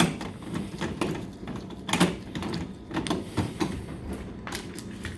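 Clicks and knocks as the door of a Royal Vision RVV 500 vending machine is opened and handled. The loudest knock comes about two seconds in, with a cluster of clacks shortly after, over a steady low hum.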